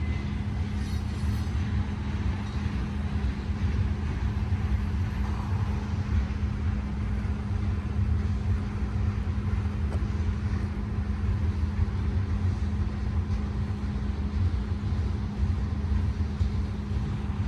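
Double-stack container freight train rolling past, a steady low rumble with a constant low hum.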